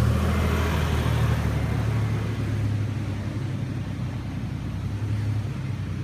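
Supercharged Toyota FJ Cruiser's V6 running with a deep, steady exhaust drone through aftermarket headers, Y-pipe and high-flow cats, easing a little quieter after about halfway.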